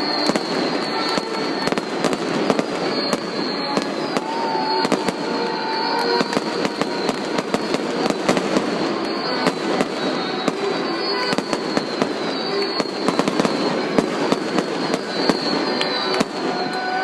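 Stadium fireworks display going off in rapid succession: a continuous barrage of pops, bangs and crackles, with short falling whistles recurring every second or two.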